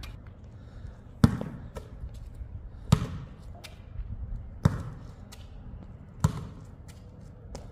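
A basketball bouncing on a hard court, four single bounces about a second and a half apart.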